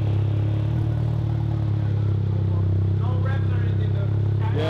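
Volkswagen MK7 GTI's 2.0-litre turbocharged four-cylinder idling steadily through a freshly fitted ECS titanium cat-back exhaust with an Integrated Engineering high-flow catted downpipe, a deep drone with a lot of bass. The muffler and cat are not yet broken in.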